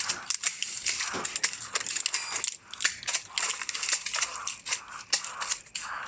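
Dense, irregular crackling and rustling of someone moving low through tall garden grass and plants, with scrapes and knocks from handling the phone.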